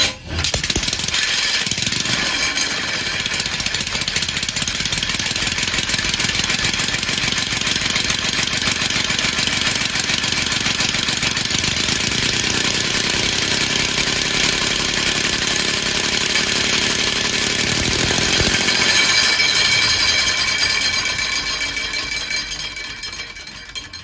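Homemade three-cylinder compressed-air engine, its oval ring making each piston push twice per revolution, running on compressed air with a fast, hissing rush of exhaust. It starts abruptly, is loudest about three-quarters of the way through, and dies away near the end as it is shut down.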